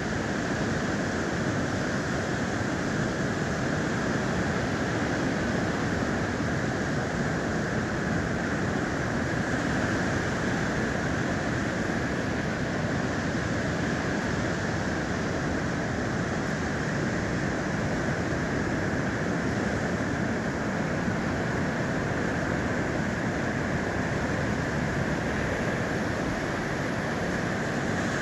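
Steady rushing noise of sea surf at a beach, an even wash with no single wave break standing out.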